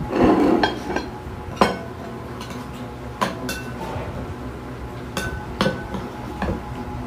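Metal spoon stirring a vinegar dressing in a glass bowl, clinking against the glass about six times, each clink ringing briefly. A soft muffled bump comes in the first second.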